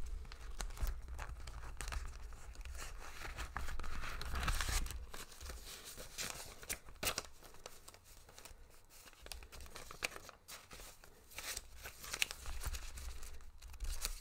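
Paper banknotes rustling and a clear plastic binder envelope crinkling as cash is counted out and stuffed into it, with a few sharp clicks and handling knocks.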